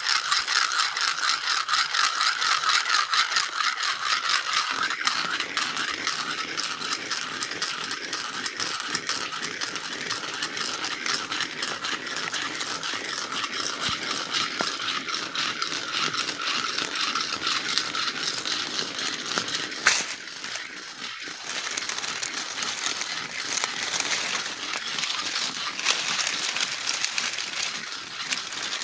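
Steady, dense rattling buzz of an insect chorus, such as cicadas, with a short break about twenty seconds in.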